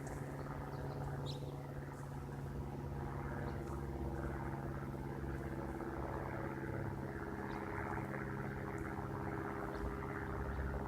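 Cessna light aircraft's piston engine and propeller droning steadily overhead at low altitude, growing a little louder toward the end.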